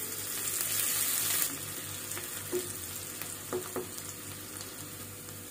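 Chopped onions sizzling in hot desi ghee, stirred with a slotted spatula that taps against the pan a few times. The sizzle softens after about a second and a half.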